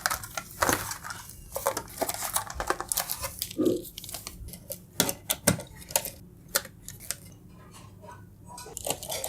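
Irregular light clicks, taps and clatters of small hard objects being handled on a surface, several every second.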